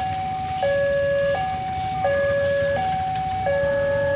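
Railway level-crossing warning alarm sounding two alternating electronic tones, a higher then a lower note, each held about 0.7 s and repeating evenly: the signal that a train is approaching. A steady low rumble lies beneath it.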